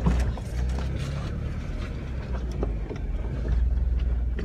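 Steady low rumble of a Jeep driving slowly on a snowy trail, heard from inside the cabin. Scattered short knocks and thuds against the body come at uneven intervals, with several in the first second and a couple near the end.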